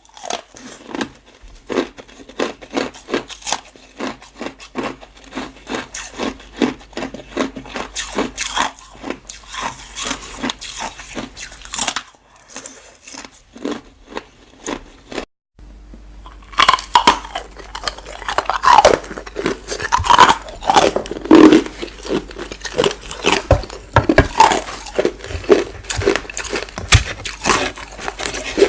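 Ice being bitten and chewed: a run of crisp crunches, about two or three a second. They ease off for a few seconds about halfway through, then come back louder, mixed with short squeaky pitched sounds.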